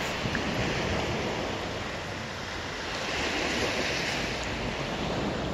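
Small sea waves lapping and washing over a shingle beach, a steady hiss that swells with one wash a little past the middle.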